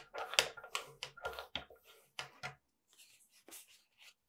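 Sheets of thick printmaking paper handled by hand on a wooden table: a quick run of short rustles and light taps in the first two seconds or so, then a few fainter rustles.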